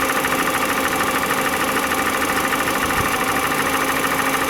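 Citroën C3's engine idling steadily after a battery replacement, with the alternator now charging the new battery.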